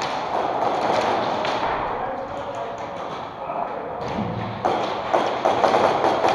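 Thumps and taps, with indistinct voices, as an airsoft player moves between barricades. The knocks come thicker in the last couple of seconds.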